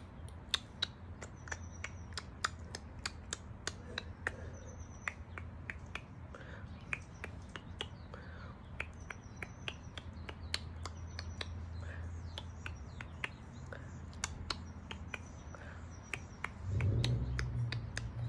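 A person making wordless mouth sounds: quick sharp clicks, about three or four a second, with faint high chirping whistles between them. The sounds imitate the tones exchanged with a hummingbird. A low hum comes in near the end.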